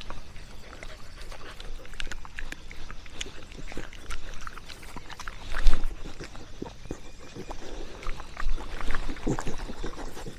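A dog moving about, with scattered rustles and clicks and one louder knock about five and a half seconds in.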